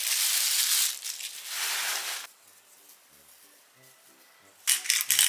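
Thin plastic bag crinkling loudly as it is pulled off cubes of raw beef in a stainless steel tray, for about two seconds. Soft background music follows, and near the end comes a quick run of sharp clicks and rattles as salt and pepper go onto the meat.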